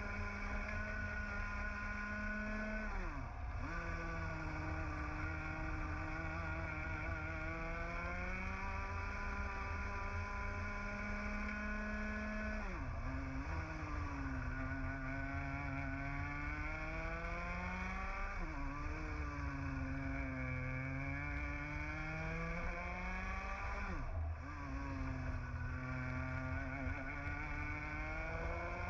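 A 125cc two-stroke TAG kart engine running flat out on a lap, heard up close from the kart. The pitch climbs steadily down each straight, then drops sharply four times as the driver lifts off for corners, and climbs again on the way out.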